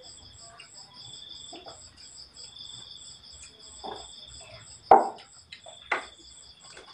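Crickets chirping steadily in a fast, even pulse. A few short knocks and clicks about four to six seconds in, the loudest a sharp knock about five seconds in.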